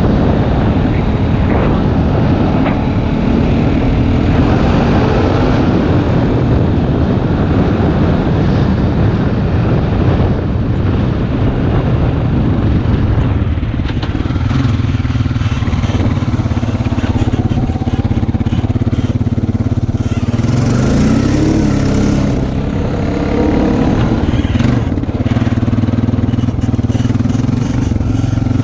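2008 Honda Rancher ATV's single-cylinder engine running under way as it is ridden, its pitch rising and falling with the throttle.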